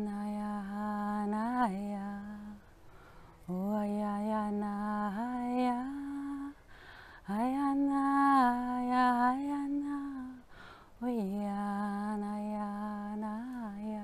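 A woman's voice intoning wordless 'light language': four long sung phrases of about three seconds each, separated by short breaths. Each phrase is held mostly on one low note, with small slides at the ends, and the middle two phrases step up to a slightly higher pitch.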